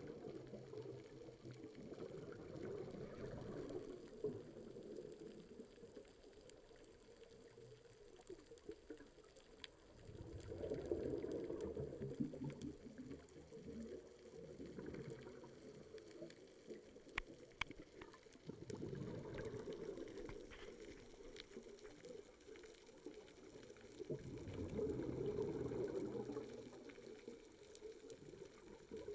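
Scuba diver breathing through a regulator, recorded underwater through a camera housing: four swells of exhaled bubbles gurgling, each two to three seconds long, a few seconds apart, with a few sharp clicks between them.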